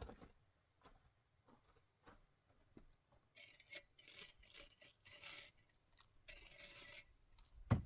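Snow being scraped up and scooped into a cup of hot tea to cool it: two stretches of rasping scraping, the second shorter, then a single knock near the end.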